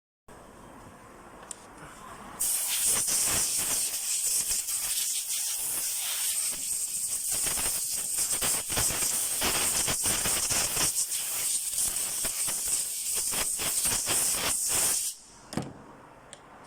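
A loud, steady hiss like a jet of pressurised air or spray, starting about two and a half seconds in and cutting off sharply about a second and a half before the end.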